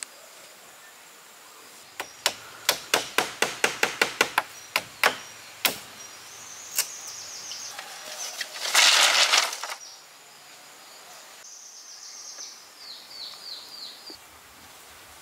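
A quick run of about a dozen sharp knocks of hard material, several a second, then a short loud rushing, scraping noise about nine seconds in. Small birds chirp now and then.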